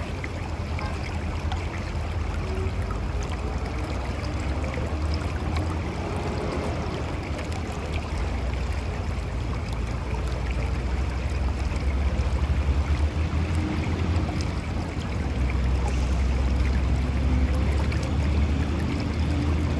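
Mountain river rushing and gurgling over rocks, a steady flow of water with a deep low rumble, growing a little louder past the middle.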